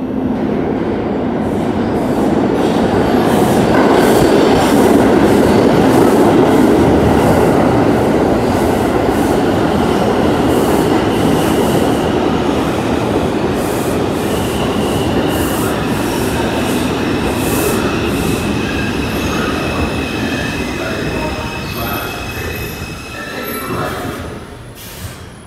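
New York City Subway 5 train pulling into the station: loud rumble and clatter of steel wheels on the rails, building over the first few seconds, then a thin high-pitched squeal as it brakes in the second half, dying away near the end as it stops.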